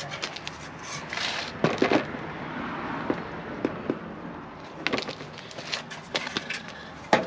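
Handling noise from a stiff plastic egg-crate grid panel being moved about and stood in a plastic tub: scattered light clicks, knocks and crackles.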